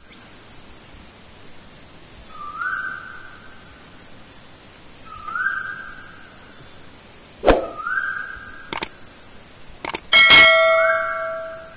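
A steady high insect chirring, like crickets, runs throughout, with a short rising whistle repeated four times, about every two and a half seconds. Near the end come a few sharp clicks and then a bright ringing bell ding, the stock sound of a subscribe-and-bell button animation.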